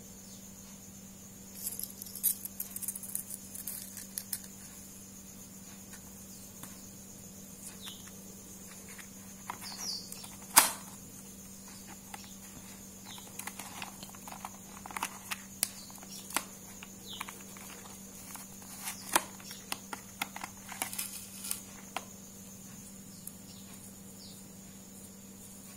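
Handling noise from a rotary-tool accessory kit: scattered small clicks, taps and rustles as bits, cutting discs and felt polishing wheels are picked out of the plastic case, with one sharper click about ten seconds in, over a faint steady hum.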